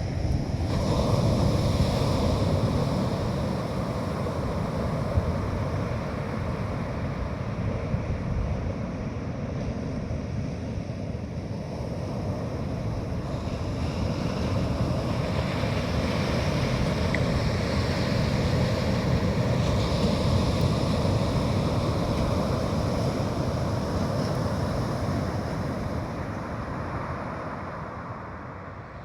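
Sea surf breaking on a beach, a continuous rushing that swells and eases, with wind buffeting the microphone.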